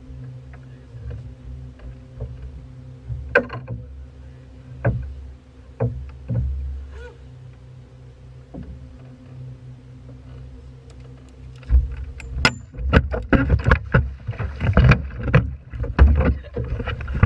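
Knocks and bumps on a boat's deck over a steady low hum, then, about twelve seconds in, a louder run of close thumps and heavy rumble as someone handles gear right beside the microphone.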